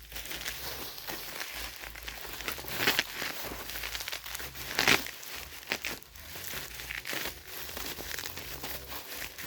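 Package wrapping being crinkled and torn open by hand: irregular crackling and ripping, with the loudest tears about three and five seconds in.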